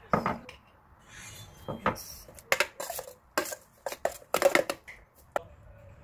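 Metal spoon scraping and clinking against a stainless steel mixing bowl while stirring a thick red chili seasoning paste, in irregular strokes with the loudest run of clinks about four and a half seconds in.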